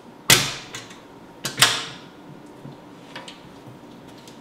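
Sheet-metal control-cabinet door of a Fadal CNC mill being closed: two loud bangs about a second apart, each ringing briefly, followed by a few lighter clicks.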